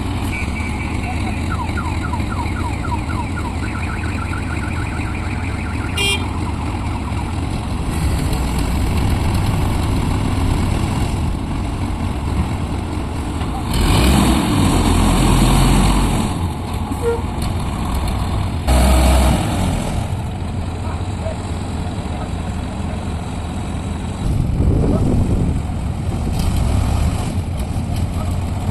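Diesel engine of heavy lifting machinery running steadily under load, surging louder twice around the middle.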